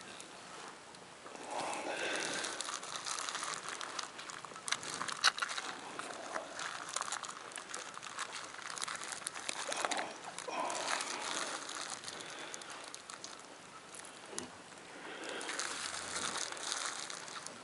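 Clear plastic obstetric sleeve crinkling and straw rustling as a gloved hand grips and pulls a calf's front leg during an assisted birth. The rustling comes in irregular bursts, with a few sharp crackles about five seconds in.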